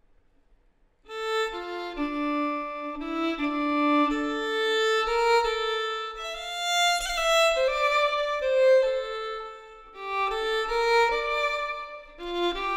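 Violin music begins about a second in: a slow melody of held notes with a short pause in the phrase near the end.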